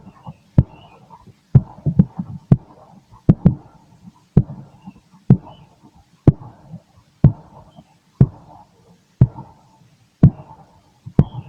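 Human heartbeat heard through a stethoscope, beating steadily at about one beat a second.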